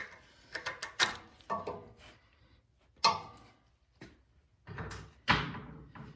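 Screwdriver and metal parts knocking against the snowblower engine during disassembly: a series of separate clicks and clunks, the loudest about five seconds in.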